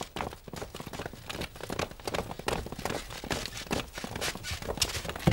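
Many people's quick running footsteps on a hard street, sedan-chair bearers hurrying along, with a heavier thump near the end.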